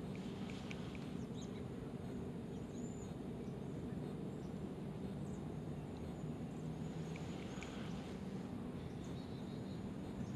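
Steady low outdoor background noise, with faint high bird chirps now and then.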